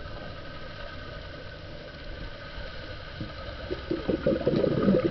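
Underwater ambience picked up through a camera's housing: a steady muffled hiss, with bubbles gurgling and crackling that grow louder from about four seconds in.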